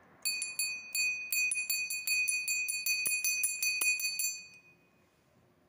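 A small metal hand bell shaken by hand, its clapper striking rapidly, several times a second, for about four seconds. It gives a high, bright ringing tone that dies away about five seconds in.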